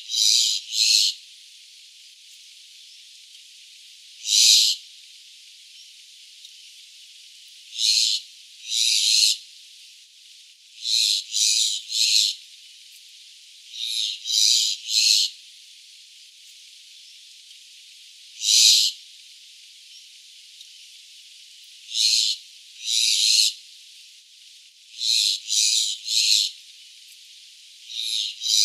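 Jungle myna calling: short, high notes, given singly or in quick runs of two or three, repeated every few seconds.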